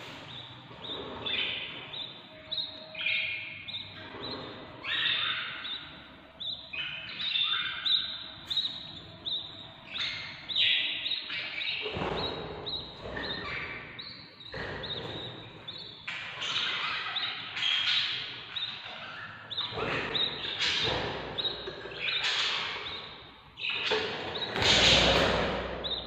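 Budgerigar chicks, about ten days old, calling in the nest box: a steady run of short, harsh chirps, one after another, the hunger calls of nestlings begging to be fed. A few louder, deeper sounds break in, the loudest near the end.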